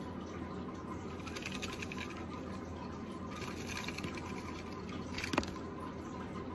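Water being poured into a plastic tub, with two spells of louder splashing and a sharp tap about five seconds in.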